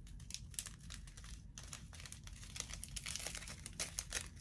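Soft, irregular crinkling and small clicks of a thin plastic packaging bag being handled.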